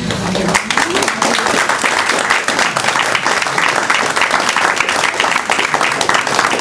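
Audience applauding: many hands clapping in a dense, steady run that starts about half a second in.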